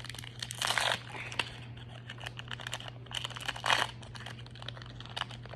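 Baseball trading cards and foil pack wrappers being handled: a rapid run of light clicks and snaps as cards are flipped through, with two louder crinkly rustles, about half a second in and again about three and a half seconds in.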